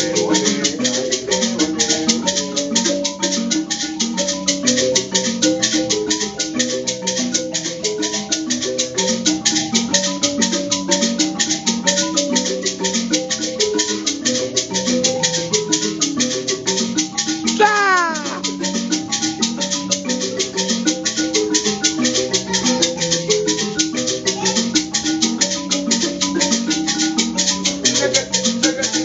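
Zimbabwean mbira ensemble: several mbira played inside gourd resonators, plucking interlocking repeating note patterns, with a fast steady hosho (gourd rattle) shake on top. About two-thirds through comes one high whoop that slides down.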